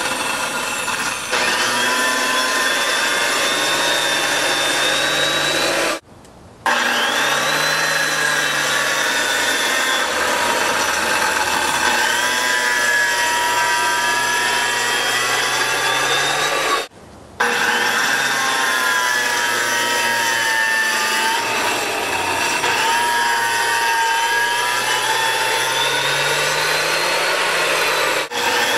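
Small electric circular saw cutting shallow score lines into a concrete slab, its high whine wavering up and down in pitch as the blade grinds along the cut. The sound cuts out abruptly twice for under a second, about a fifth of the way in and just past halfway.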